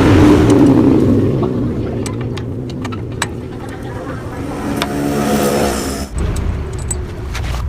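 Yamaha RX-King's two-stroke single-cylinder engine running through its stock exhaust, revved up just after the start and again about five seconds in.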